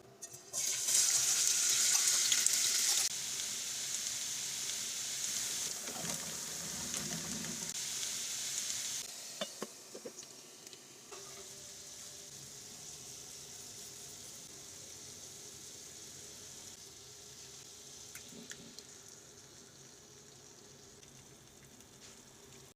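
Food frying in hot oil in a pan, a sizzle that starts suddenly about half a second in and is loudest for the first few seconds. After about nine seconds a few sharp clicks of a utensil on the pan are heard, and the sizzle carries on more quietly.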